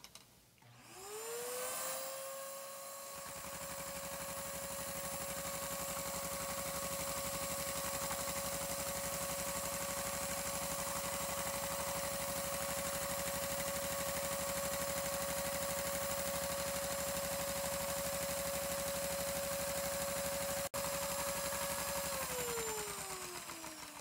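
Vacuum cleaner motor spinning up with a rising whine, running steadily, then winding down with a falling whine near the end. Its suction, fed through a hose, drives a LEGO Technic vacuum beam engine, whose fast, even clatter runs underneath.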